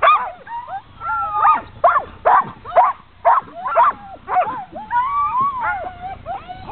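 A team of harnessed sled dogs barking and yelping in a rapid, overlapping chorus, with a longer wavering whine about five seconds in: the excited noise of dogs jumping in their harnesses, eager to run.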